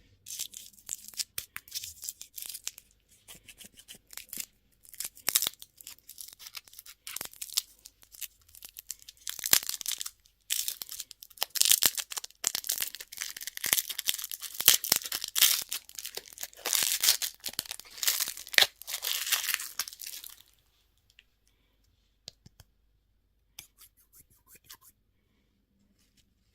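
Candy packaging being torn open and crinkled by hand: a long run of dense crackling and tearing for about twenty seconds, then a few scattered small clicks and rustles.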